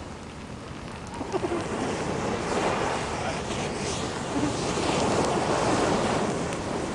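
A coffee can packed with dozens of burning firework snakes, hissing hard, the sound building over the first couple of seconds and loudest near the end.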